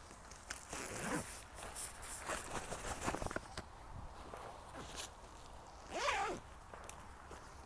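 Corn leaves and stalks rustling and scraping against the phone as someone pushes through a corn field, in irregular crackles with a louder burst about six seconds in.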